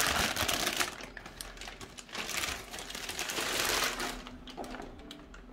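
Plastic packaging crinkling and clicking as a PVC figure is handled out of its wrapping, in two bouts of rapid rustling that die away about four seconds in.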